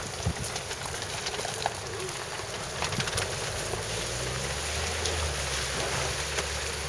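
Land Rover Freelander 2 descending a steep slope of loose slate: wind buffeting the microphone, scattered clicks of stones under the tyres, and from about halfway the low steady hum of its engine as it reaches the bottom.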